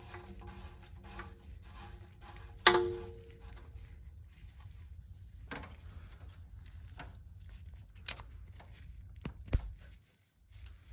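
Background music with sustained notes that fade out about halfway through, and a few sharp clicks or knocks, the loudest near the end.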